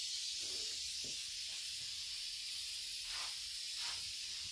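Steady high hiss of background noise, even in level throughout.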